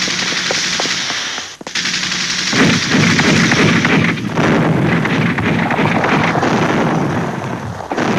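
Sustained battle gunfire: continuous machine-gun and rifle fire, dipping briefly about a second and a half in, then heavier and denser from about two and a half seconds on.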